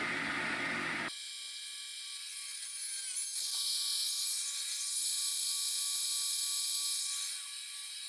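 Sawmill running and sawing through a log. About a second in, the low, full sound drops out abruptly, leaving a high hiss with a whine of several steady tones that grows louder from about three and a half seconds in until near the end.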